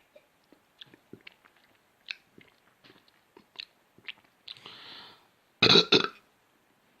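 A woman gulping down coffee in a run of small swallowing clicks, then a breathy exhale and a loud, abrupt burp about five and a half seconds in.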